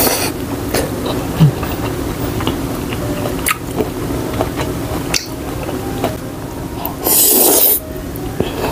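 Close-miked eating sounds: wet chewing with small mouth clicks, then a loud slurp of bún bò rice noodles near the end.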